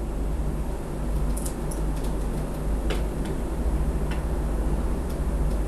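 A few faint, sharp clicks of small plastic parts being handled as an IDE ribbon-cable connector is unplugged from a circuit board, over a steady low hum.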